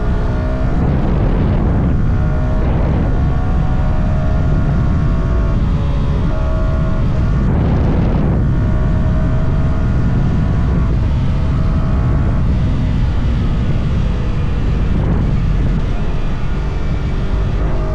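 Yamaha R125's stock single-cylinder four-stroke engine under way, its pitch climbing several times as it revs up through the gears and dropping between, over a steady low rush of riding noise.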